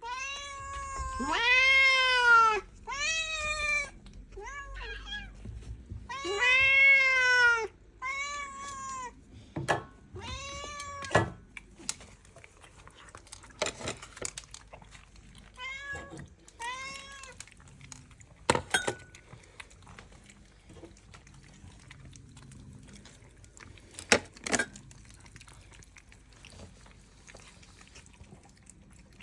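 Domestic cat meowing over and over, about eight or nine drawn-out meows that each rise and fall in pitch, some loud and some softer. After that, near the middle, the meows stop, leaving quiet room sound with a few sharp knocks.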